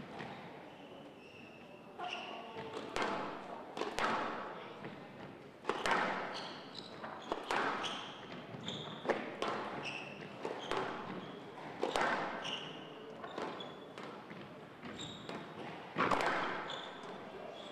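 Squash rally: the ball cracking off rackets and the walls of a glass court every second or two, at an uneven pace, with short high squeaks of shoes on the wooden floor between the shots.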